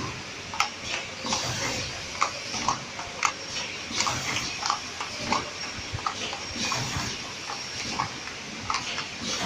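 Tea bag packaging machine running: a steady hiss with a faint high whine, and short squeaks and clicks repeating about every two-thirds of a second as its mechanism cycles.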